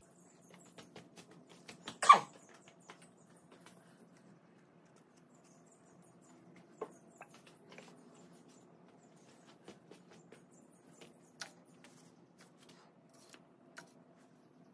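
Scattered small clicks and taps, with one sharper knock about two seconds in, over a faint low steady hum.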